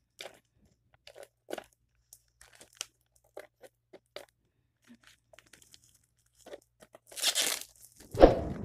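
Clear plastic wrap on a product box crinkling and crackling in short scattered bursts as it is handled and pulled open. About seven seconds in comes a longer, louder rustle and rip, followed by a heavy thump.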